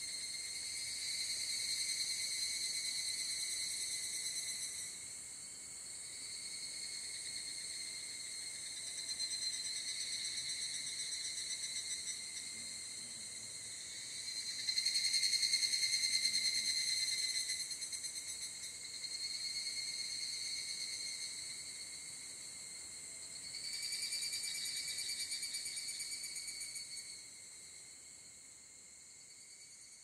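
Several higurashi evening cicadas (Tanna japonensis) singing high, ringing, rapidly pulsed trills in overlapping phrases a few seconds long, each swelling and then fading. The chorus dies down near the end.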